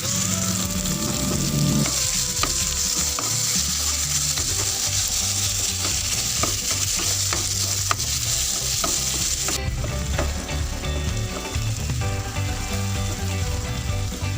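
Food sizzling in oil in a frying pan while being stirred, with a utensil tapping and scraping against the pan. The sizzle softens about two-thirds of the way through.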